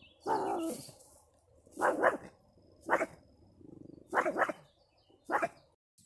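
Pomeranian barking: about seven short barks, several in quick pairs, the first one longer and drawn out.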